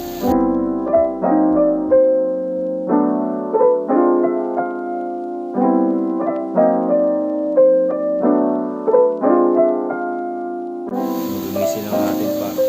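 Background piano music playing a gentle repeating figure of chords and notes. A faint hiss sits under it for a moment at the start and returns near the end.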